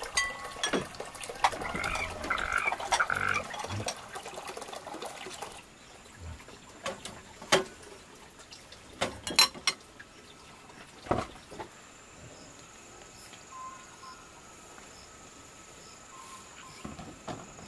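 Scattered sharp knocks and clicks over a background of faint repeated animal calls, with a steady high-pitched tone joining about two-thirds of the way in.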